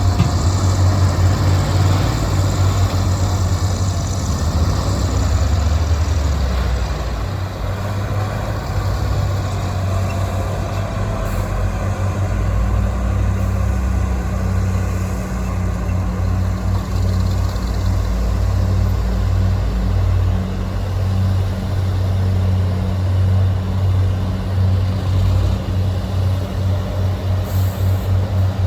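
Heavy diesel engines of dump trucks and a bulldozer running with a loud, steady low drone. The low engine tones shift about six seconds in, as the engines change speed.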